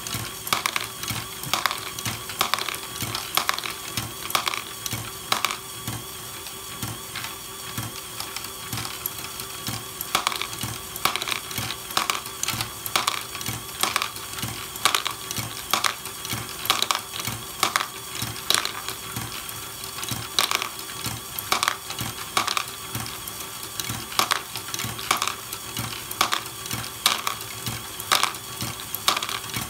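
Lego Great Ball Contraption fork-lift module running: a steady motor and gear whir, with frequent clicks and clatter of plastic balls as the forks pick them up and lift them.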